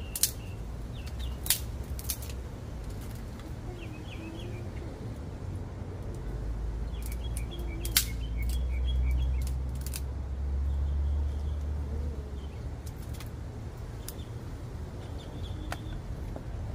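A few sharp snaps of wood from a wood fire being made up, over small birds chirping. A low rumble swells in the middle.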